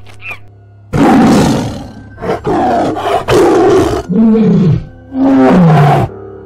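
Cartoon Tyrannosaurus rex roar sound effects: a run of loud roars starting about a second in, the last two falling in pitch.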